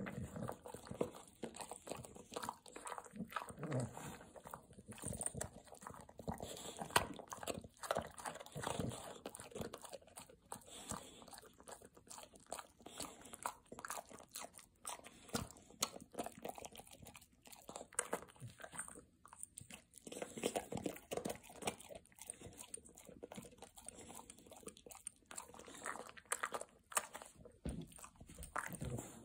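English bulldog chewing and crunching a peanut butter cookie, the crunches coming irregularly with short pauses in between.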